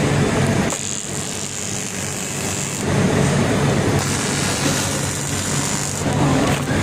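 TIG welding arc buzzing, a low steady buzz that twice drops back to a quieter high hiss for a couple of seconds.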